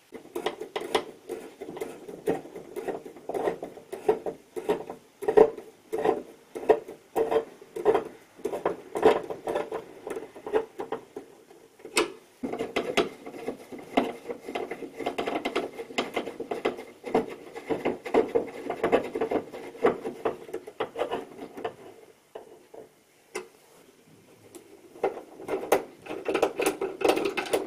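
Hand screwdriver turning the fixing screws of a TV on a metal wall bracket: a run of quick, irregular clicks and scrapes, with a short lull near the end.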